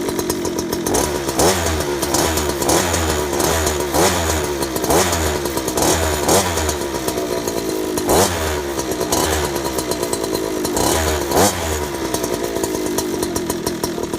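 Evo scooter's 71cc two-stroke engine with a tuned expansion pipe, running and blipped about ten times, each rev rising sharply and falling back to idle.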